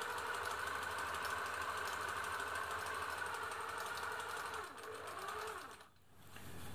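Singer 766 sewing machine running at a steady speed as it sews a narrow zigzag in denim: an electric motor whine with fast needle ticking. About four and a half seconds in it slows, speeds up briefly, then stops near the end.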